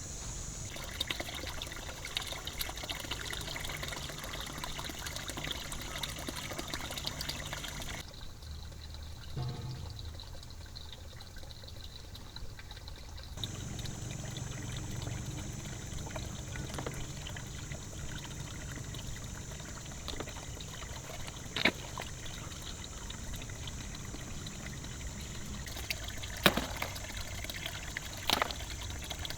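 Water pouring and trickling steadily, with a few sharp knocks in the second half.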